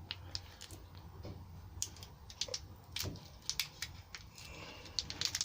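Irregular small clicks and rattles of the parts and packaging of a DIY tyre puncture repair kit being handled.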